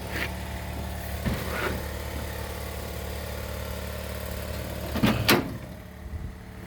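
A steady low mechanical hum, like a motor running, with a few knocks, the loudest two close together about five seconds in.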